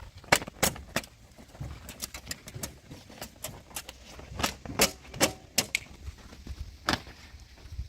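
Irregular sharp clicks and knocks, over a dozen of them, over a faint low rumble.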